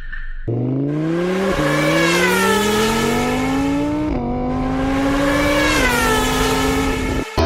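Engine revving: its pitch climbs steadily over several seconds, jumps up once, then holds with two small dips before cutting off just before the end.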